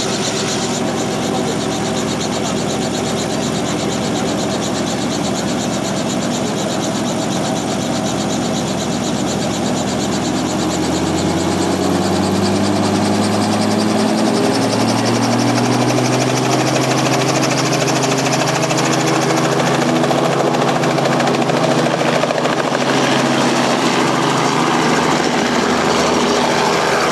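Robinson R44 helicopter's piston engine and two-bladed rotor running on the pad. About eleven seconds in, the pitch rises as the rotor spools up to flight speed, then holds steady and a little louder through lift-off.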